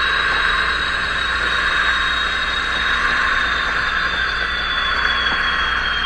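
Diesel locomotive engine sound played by an ESU LokSound 5 decoder through the speaker of a model BR 218 locomotive as it runs along the track. A steady running sound with a high whine that slowly falls in pitch as the engine sound adapts to the required load.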